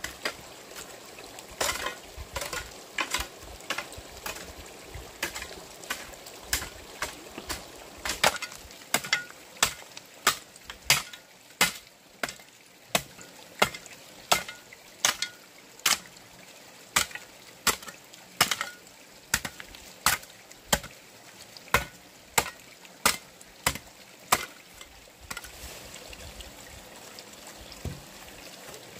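Wood being struck over and over with sharp blows, like chopping. The blows come irregularly at first, then settle into a steady rhythm of about three every two seconds, and stop about 25 seconds in.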